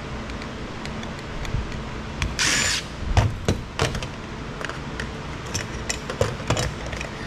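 Clicks and knocks of hand tools and small metal parts on a steel workbench as a circuit board is taken apart, with a short hiss about two and a half seconds in.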